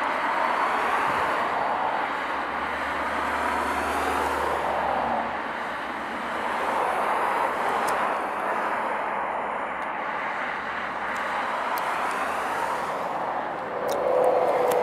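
Boeing 767-300ER's twin turbofan engines at low taxi power as the airliner taxis: a steady rushing hum that swells and eases slowly.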